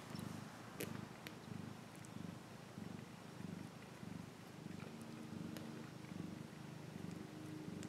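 Maine coon mother cat purring steadily while nursing her newborn kittens, a continuous pulsing rumble, with a few faint clicks over it.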